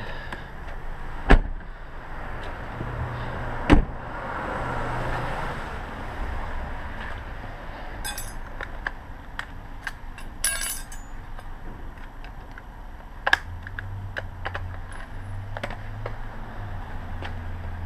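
Handling noise from tools and a new reciprocating saw blade: a few sharp knocks, light metallic clinks and rustling, with a low steady hum in the last few seconds.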